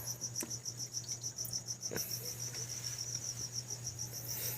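Crickets chirping in a fast, even pulse, over a low steady hum, with a few faint clicks.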